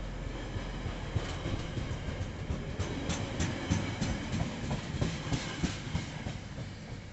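Container wagons of a freight train rolling past, a low rumble with clusters of sharp wheel clicks over the track. The sound dies away near the end as the tail of the train passes.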